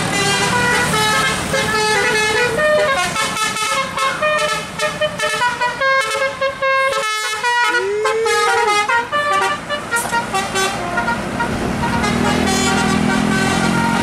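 Multi-tone telolet horn of an Adiputro Jetbus 3+ tour bus playing a quick tune of stepping notes, several horn tones sounding at once, with a brief break about seven seconds in. The tune ends about eleven seconds in, and a low engine hum follows.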